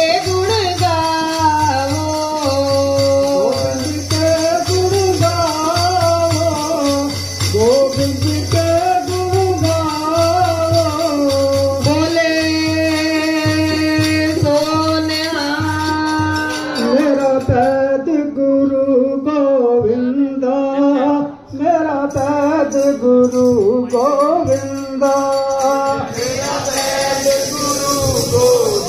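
Sikh devotional hymn singing (kirtan) with harmonium accompaniment and a jingling rattle-type percussion keeping the beat. The jingling drops out for several seconds about two-thirds of the way through, then returns near the end.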